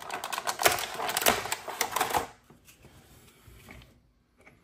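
Clear plastic blister tray crackling and clicking as a clear plastic display stand is pried out of it, stopping a little over two seconds in.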